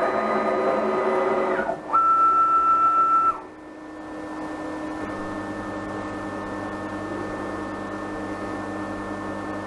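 Stepper motors of a 6040 CNC router whining at steady pitches as the axes drive to their home switches one after another. Each motion stops abruptly: the first near two seconds in, then a louder, higher whine that cuts off after a little over a second. After that only a quieter steady hum remains.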